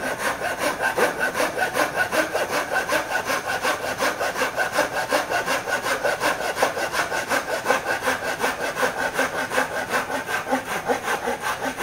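Small Kihong Fastcut hand saw, 150 mm, cutting through a piece of wooden rafter stock in rapid, even back-and-forth strokes. It cuts very fast.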